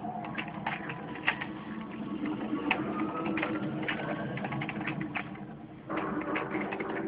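Small toy cars clicking and clattering together as a toddler handles them, irregular sharp clicks over a steady background hum.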